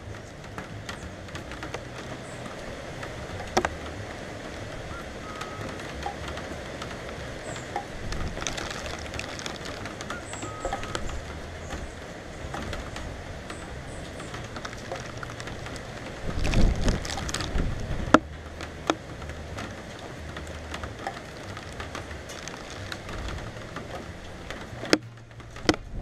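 Steady rain falling, with scattered drops tapping sharply on a cover close by. About two-thirds of the way through there is a brief, loud low rumble.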